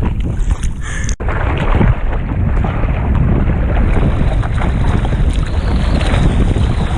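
Choppy ocean water sloshing and splashing close to the microphone, with wind buffeting the mic. The sound cuts out for an instant about a second in.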